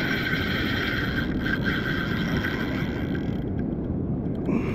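Wind on the microphone and water noise, with a steady high whine from a spinning reel under the load of a big Spanish mackerel; the whine stops about three and a half seconds in.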